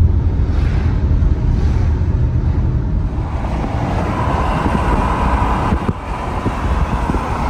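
Car driving on the road: a steady low rumble of engine and road noise.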